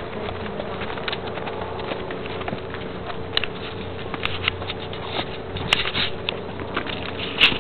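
Horses walking on a dry dirt trail: irregular hoof clicks and knocks with tack rattle, a sharper knock near the end the loudest.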